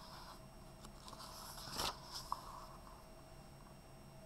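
A page of a picture book being turned by hand: a soft paper rustle that swells to a brief swish about two seconds in, followed by a small click.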